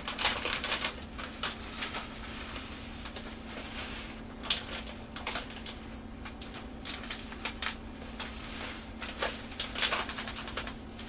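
Plastic bag of panko (Japanese bread crumbs) crinkling and rustling in irregular crackles as the crumbs are shaken out of it into a mixing bowl of cut potatoes.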